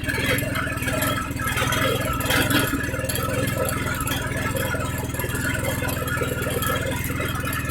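Small pull-start petrol engine of a peanut grinding machine running steadily, with an irregular clatter over its even hum.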